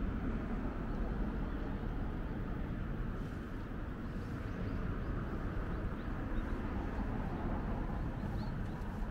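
Steady outdoor background rumble, heaviest in the low end, with a few faint high bird chirps.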